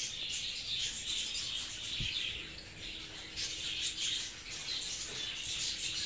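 A colony of budgerigars chattering, a continuous high twittering and chirping. There is a single soft thump about two seconds in.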